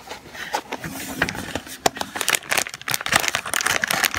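Fingers scratching and picking at the glossy wrapping on a cardboard chocolate pralines box, an irregular run of crackles and crinkles as they struggle to get it open.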